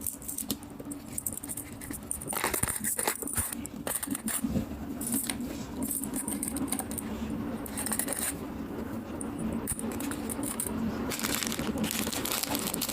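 Paper rustling, crackling and clicking as a folded origami paper box is handled, in quick irregular bursts throughout, over a steady low hum.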